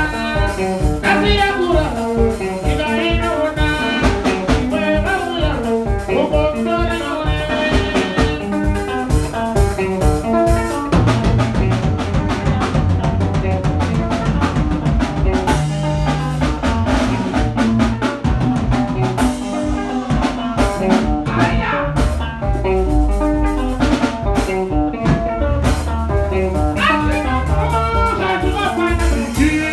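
Live band rehearsal: electric guitar, five-string electric bass and drum kit playing an upbeat groove together. Quick picked guitar lines stand out at first. From about eleven seconds in, the bass and drums carry the music, and the guitar lines come back near the end.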